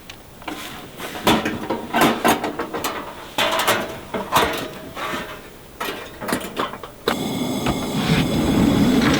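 Camp-kitchen gear being handled at an SUV's pull-out drawers: a string of clicks, knocks and short scrapes. A steadier continuous noise takes over about seven seconds in.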